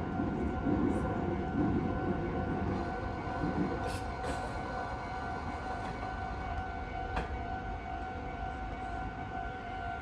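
Japanese railway level-crossing warning bell ringing steadily, an electronic two-tone clang, while a passing Meitetsu train's rumble fades over the first few seconds.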